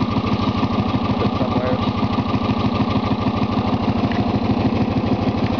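Lawn tractor engine running steadily, with an even rapid pulse.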